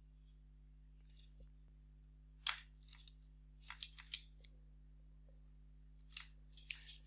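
Computer keyboard typing: a dozen or so faint, separate keystrokes in short irregular runs with pauses between.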